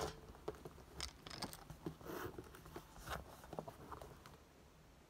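Faint handling noise from a monogram canvas and leather handbag: scattered rustles and soft clicks as the flap is held back and the inner compartments are opened. The noises trail off near the end.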